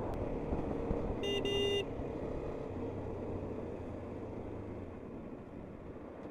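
KTM 250 Adventure's single-cylinder engine running with wind rush as the bike slows and shifts down. A horn toots twice in quick succession just over a second in.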